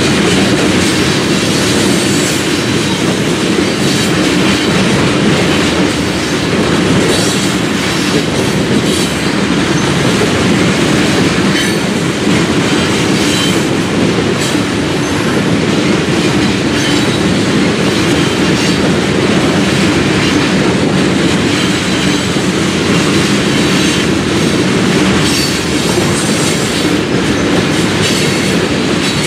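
A long freight train of railroad tank cars rolling steadily past, a continuous loud rolling noise of steel wheels on rail with repeated clacks as the wheels cross the rail joints.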